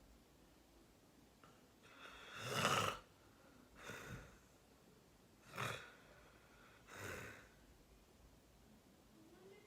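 Snoring during sleep: four noisy snoring breaths a second or two apart, the first, about two seconds in, the longest and loudest.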